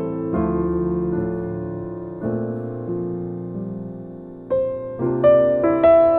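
Slow, sparse solo jazz piano: a few notes or chords struck at a time and left to ring and fade, with fresh chords coming in near the end.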